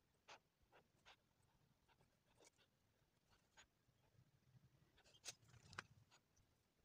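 Near silence with a few short, faint scratches of a flat paintbrush dabbing black acrylic paint onto sketchbook paper, the two loudest about five and six seconds in.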